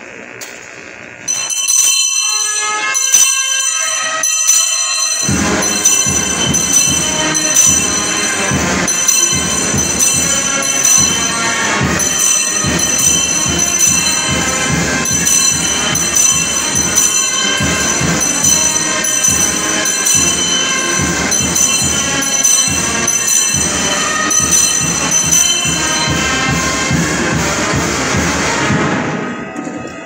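Bells ringing rapidly and continuously. The ringing begins abruptly and is joined about five seconds in by lower, quick repeated strokes, then fades near the end. It marks the blessing with the Blessed Sacrament as the monstrance is raised.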